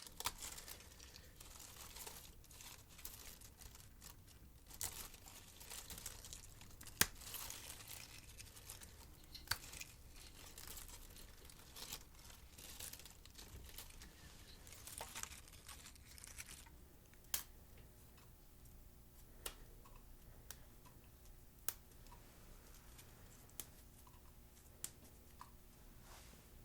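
Fresh mint sprigs being picked and handled: soft crackly rustling and tearing of leaves and stems for the first two-thirds or so, then quieter, with scattered single sharp clicks.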